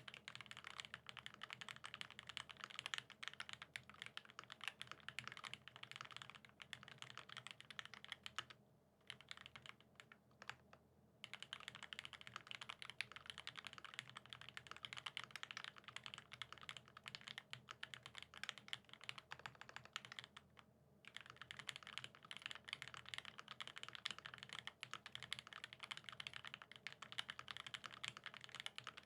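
Fast, steady typing on a Satisfaction75 mechanical keyboard with lubed vintage Cherry Top SP Star switches in a top-mounted brass plate, capped with GMK Shoko keycaps. The keystrokes come in quick runs, with brief pauses about 9, 11 and 21 seconds in.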